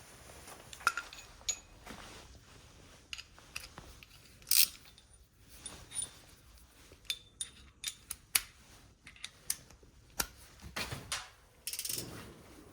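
Irregular metallic clicks and clinks of hand tools and small metal parts being handled, with a louder clink about four and a half seconds in.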